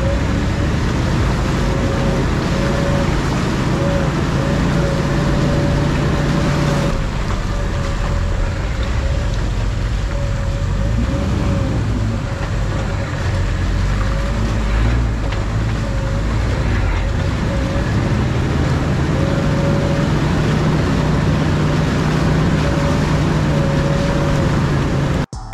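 A Jeep driving on an off-road trail: steady engine rumble with tyre and drivetrain noise, and a thin wavering whine running over it. The sound changes abruptly about seven seconds in.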